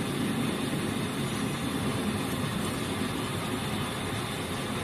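C6151 horizontal lathe running, its chuck spinning a large metal disc while a turning tool in the four-way tool post faces it: a steady mechanical running noise with no breaks.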